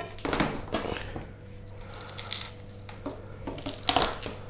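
Kitchen knife cutting into whole garlic bulbs, skin on, on a wooden cutting board: a few irregular knocks of the blade on the board with crunchy cuts through the cloves.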